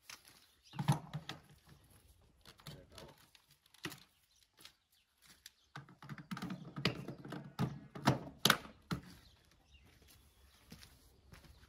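Scattered clicks and knocks of a pressure washer and its hose fittings being handled, bunched in two busier spells, the second and louder a few seconds in.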